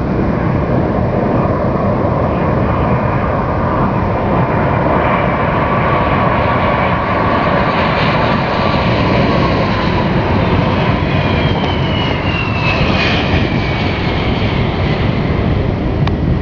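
Boeing 747 airliner's four jet engines roaring during its landing, loud and steady, with a whine that slides down in pitch in the second half.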